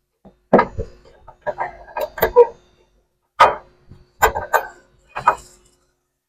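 A run of sharp metallic knocks and clinks, about eight in all, irregularly spaced, as steel bolts and washers are worked up through an air bag bracket and clamp under a truck.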